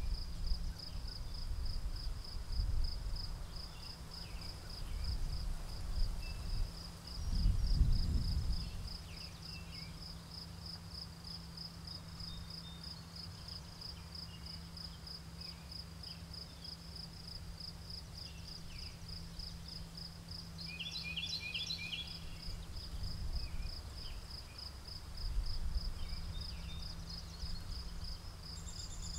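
Crickets chirping steadily, about two chirps a second, over a low wind rumble on the microphone that swells about eight seconds in. A short bird call sounds about three-quarters of the way through.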